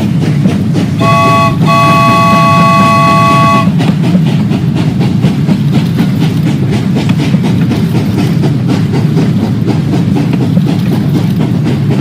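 Train sound effect: a steady rolling rumble with a clickety-clack, and a chime whistle sounding twice about a second in, a short blast and then a longer one of about two seconds.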